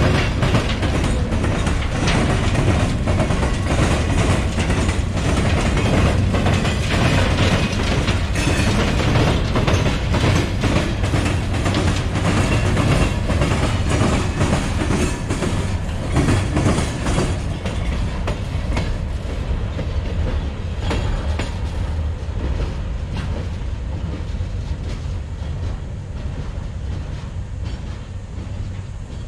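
Loaded ballast hopper cars of a work train rolling past at close range, wheels clacking rapidly over the rail joints and the diamond crossing over a low rumble. The clatter eases off and fades in the last several seconds as the train moves away.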